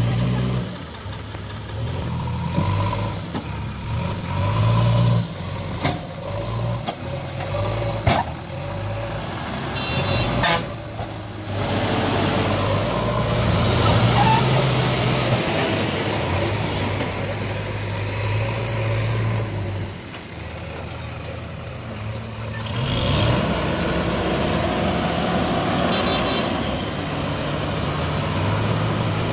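Heavy diesel engines of a loaded tipper truck stuck in dung and mud and a JCB 3DX backhoe loader running hard and revving up and down under load, with a few sharp knocks about eight and ten seconds in.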